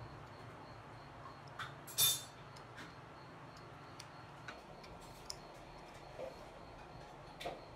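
Scattered small clicks and taps from multimeter test probes and hand tools being handled on a hard tabletop, one sharper click about two seconds in, over a faint steady hum.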